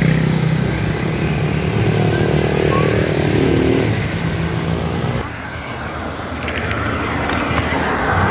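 A motor vehicle engine running nearby, its hum shifting in pitch; the sound changes abruptly about five seconds in.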